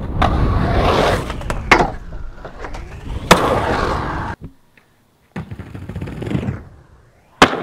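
Skateboard wheels rolling over concrete, broken by sharp board impacts: one a little under two seconds in, another about a second and a half later, and the loudest near the end. A second of silence falls midway.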